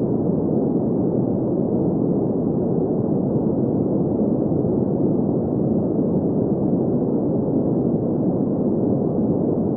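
Steady green noise: a constant hiss centred in the mid-low range, with almost nothing above about 2 kHz.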